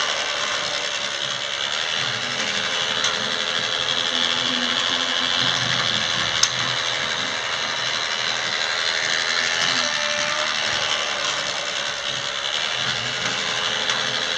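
LEGO Duplo Intelli-Train locomotive running around its plastic track, its small battery motor and gears whirring steadily.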